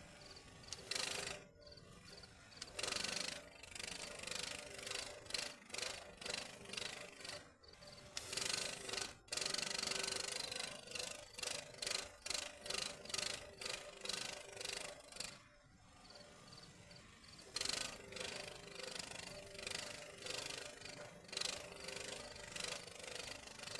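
Electric arc welding on steel rebar: the arc crackles and sputters in stretches of a few seconds, each broken off by short pauses between welds, over a steady faint hum.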